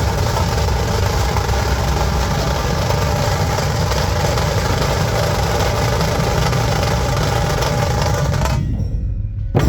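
Dhol and tasha drums playing a fast, dense roll together, which cuts off sharply about eight and a half seconds in, followed by a single loud beat near the end.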